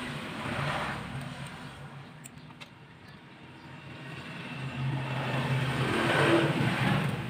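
Road vehicles passing by. One dies away in the first second, and another builds up from about three seconds in, is loudest near six seconds, and fades at the end.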